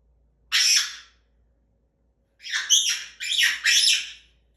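African grey parrot giving loud, harsh screeching squawks: one about half a second in, then several in quick succession from about two and a half seconds in. This is the unwanted 'bad noise' it gets scolded for.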